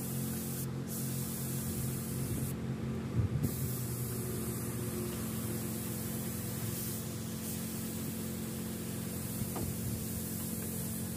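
Hose-fed paint spray gun hissing steadily as paint is sprayed onto a truck cab roof, over a steady low hum. A brief thump about three seconds in.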